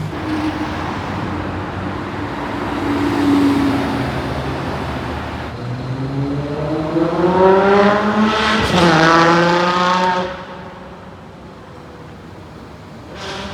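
Novitec-tuned Lamborghini Aventador SV's V12 accelerating hard: the engine note climbs steadily for about three seconds to a sharp crack, then runs on at a lower pitch and fades away about two-thirds of the way in.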